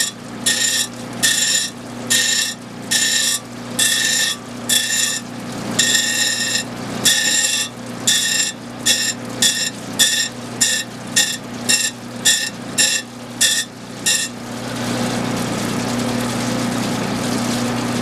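CabKing 6-inch cabochon machine running, with a dopped stone pressed against its wet diamond wheel: a high-pitched grinding whine comes and goes about one to two times a second as the stone is moved on and off the wheel. The whine stops about fourteen seconds in, leaving the steady motor hum and running water.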